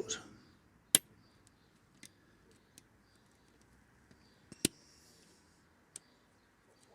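A few sharp clicks and knocks of plastic parts being handled on the AVA Evolution P80 pressure washer's hose reel and its clips, loudest about a second in and again a little past halfway, with fainter ticks between.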